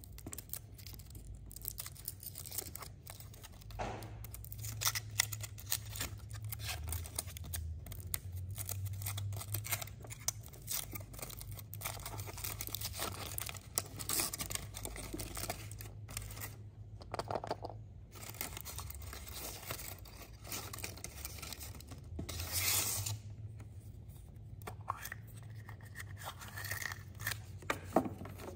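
Thin aluminium foil wrapper of a chocolate surprise egg being peeled off and crinkled by hand: continuous crackling and tearing, with one louder, longer rustle about three-quarters of the way through.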